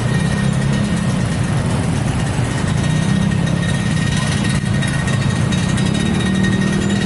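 Vehicle engines running steadily, with a faint steady high tone over the engine sound.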